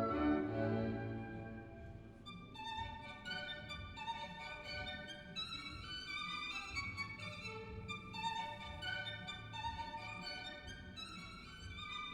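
Recorded classical music played back through a high-end hi-fi system built around a totaldac converter: a violin plays a melody of short notes after a fuller, lower-pitched string passage in the first two seconds.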